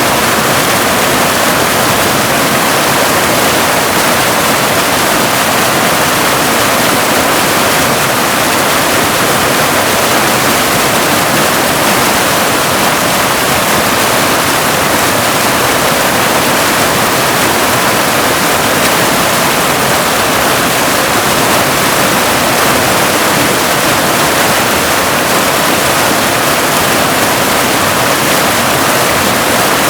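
Waterfall: a steady, unbroken rush of falling water, mostly hiss with little deep rumble.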